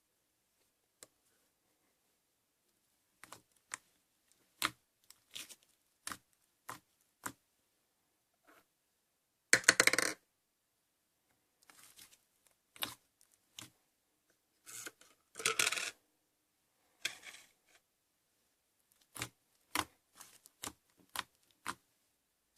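Slime being played with by hand: a string of short sharp clicks and pops, with two longer, louder squishing bursts about ten and fifteen seconds in.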